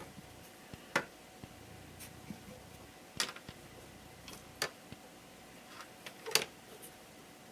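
Light clicks and knocks of unfinished wooden pieces being fitted together by hand: a handful of separate, faint taps a second or two apart.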